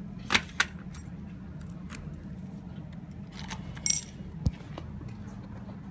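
Kawasaki Zephyr 1100's air-cooled inline-four idling steadily. Over it come sharp metal clicks and a jingle of keys as the fuel filler cap is pressed shut, with two clicks close together near the start and more about four seconds in.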